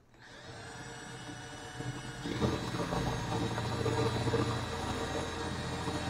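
Cordless drill running, its twist bit drilling into a galvanized steel EMT pipe. The motor's whine starts at once and grows louder, with a higher note added, about two seconds in as the bit bites into the metal.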